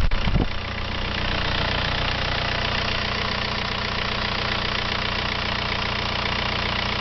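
2000 Volkswagen New Beetle's 1.9-litre four-cylinder TDI turbo-diesel idling steadily, heard from the open engine bay. A short louder low rumble comes in the first half second.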